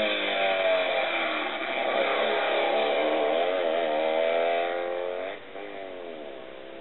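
Barboni racing car's engine running at high revs on a hill climb, its pitch rising and falling. About five seconds in it suddenly drops much quieter, and a fainter engine note falls away as the car passes.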